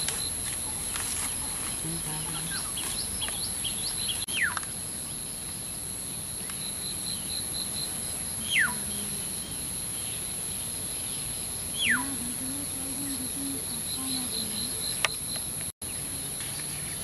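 Outdoor rural ambience: a steady high insect drone with pulsing cricket chirps, and a bird giving a whistled call that slides sharply downward, three times about four seconds apart.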